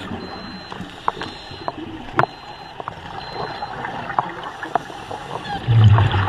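Underwater sound at a scuba diver: a steady watery hiss with scattered sharp clicks, then a brief low bubbling rumble near the end, typical of regulator exhaust bubbles.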